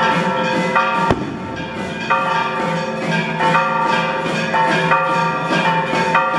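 Procession dance music: a small hand drum and the dancers' sonaja rattles keep a steady beat of about two strokes a second, over many held ringing tones that change every half second or so.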